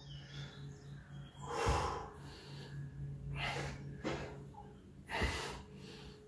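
A man breathing hard through a set of cross-body mountain climbers: three short, forceful exhales, about one every two seconds, two of them with a soft low thump.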